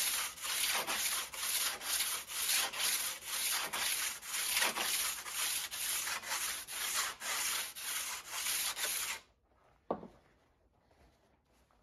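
Sandpaper rubbing back and forth along the rusty steel blade of an antique crosscut logging saw, in quick even strokes of about two to three a second, taking the rust off. The sanding stops about nine seconds in, and a single short knock follows about a second later.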